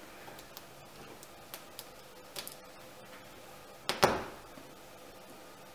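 Small clicks and taps of a hand tool working at the chainplate slot on the fibreglass deck, then one loud sharp clack about four seconds in, followed by a short ringing decay.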